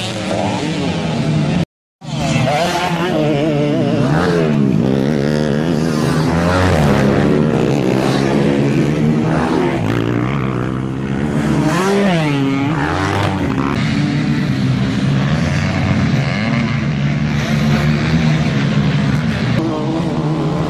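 Several dirt-track racing motorcycles revving hard on a grasstrack, their engine pitch rising and falling with throttle and gear changes as they pass. The sound cuts out briefly about two seconds in.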